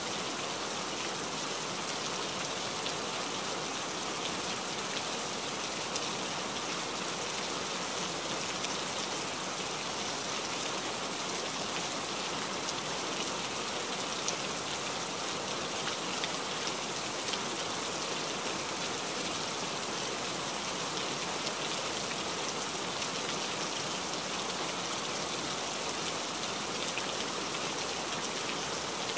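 Steady rain: an even hiss with a light patter of individual drops.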